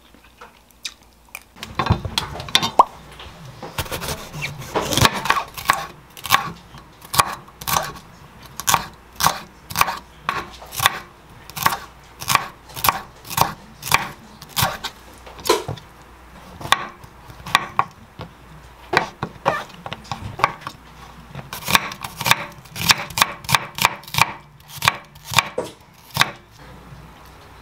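Chef's knife slicing bell peppers and onion on a wooden cutting board, the blade knocking the board in an even run of about two cuts a second.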